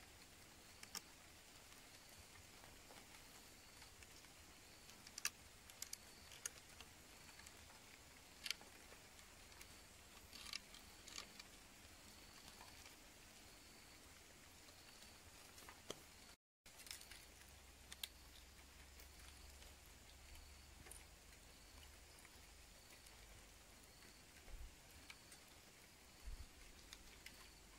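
Near silence with scattered faint clicks and ticks from hands working thin cord around sticks while lashing a wooden joint. A faint high chirp repeats about once a second in the background.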